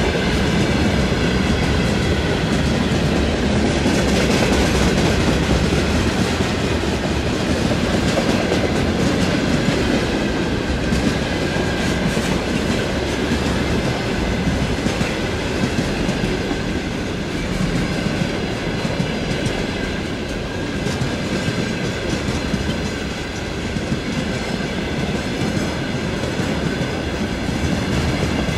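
Wagons of a long mixed freight train rolling past steadily, wheels clattering on the rails, with a faint high ringing over the noise.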